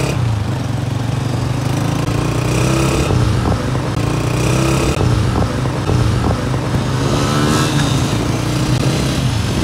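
Small motorcycle engines running at road speed in traffic: a steady low drone that rises and falls a little in pitch as the throttle changes.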